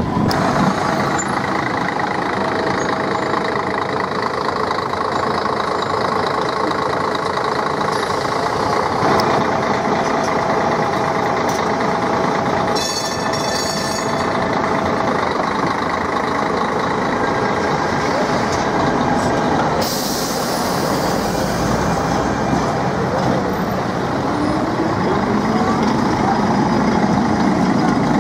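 City street traffic with trams and buses passing: steady vehicle running noise, with a burst of air hiss about twenty seconds in and a motor whine rising and falling near the end.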